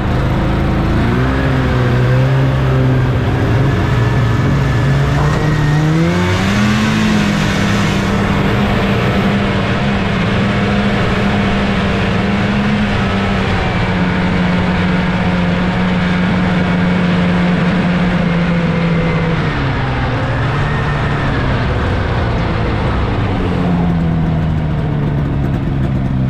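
1979 Scorpion Whip snowmobile's Cuyuna 440 two-stroke engine running under way, heard from the sled itself. It speeds up about six seconds in and holds a steady higher pitch, eases off near twenty seconds, then picks up again near the end.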